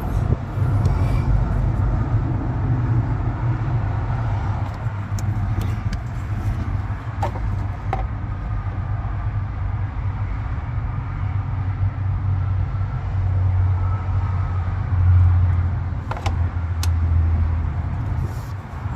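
Steady low rumble of an idling diesel truck engine, swelling slightly near the end, with a few light clicks.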